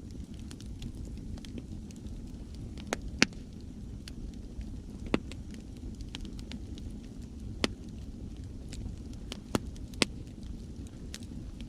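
Wood fire crackling, with sharp pops now and then, the loudest about three seconds in and near ten seconds, over a steady low rumble of sea waves.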